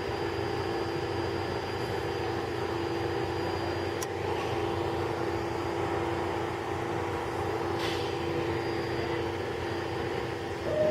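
R46 New York City subway cars giving off a steady hum with several held tones of unchanging pitch, with a single sharp click about four seconds in.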